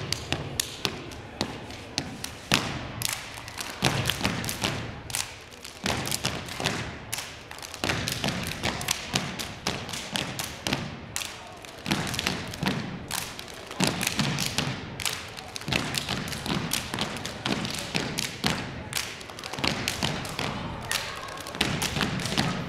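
Step team performing a routine: rhythmic stomps on a hardwood court floor in unison, a dense run of sharp strikes.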